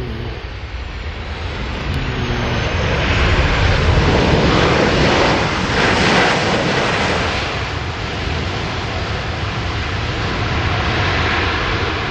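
Boeing 737-800's CFM56 turbofan engines on the landing roll, a loud jet roar that swells as the airliner rolls close past, is loudest about five seconds in, then eases off as it moves away down the runway.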